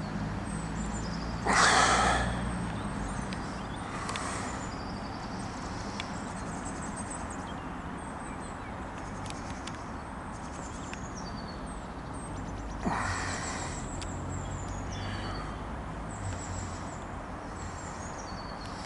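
Outdoor background noise with small birds chirping high and thin throughout, and two brief rushes of noise, one near the start and one about two-thirds of the way through.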